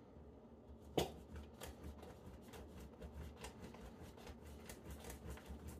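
Block of cheddar cheese being rubbed across a handheld grater: faint rasping strokes, about three a second, over a low hum. A sharp knock about a second in is the loudest sound.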